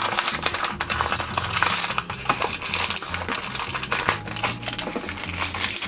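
A toy blister package being torn open by hand: the cardboard backing card ripping and the clear plastic blister crinkling, in a dense run of crackles and snaps.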